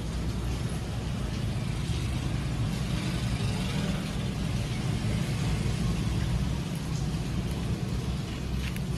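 Steady low background rumble, with a few faint clicks near the end as a plastic hydrogel screen-protector sheet is handled.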